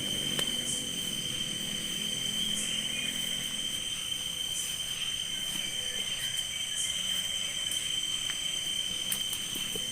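Chorus of insects, crickets among them, trilling steadily: one constant high note with fainter higher trills above it and short chirps every few seconds.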